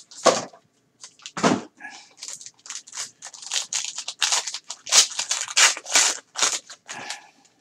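Gold foil wrapper of a Gold Standard football card pack being torn open and crinkled by gloved hands: a dense run of crackles and rustles, starting with a couple of duller knocks.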